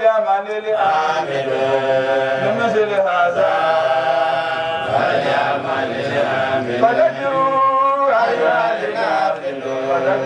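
A group of men's voices chanting together in long, drawn-out phrases.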